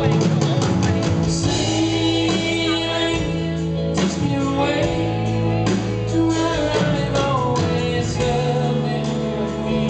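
Live soft-rock band performance: a man singing at the microphone over electric guitar and sustained backing.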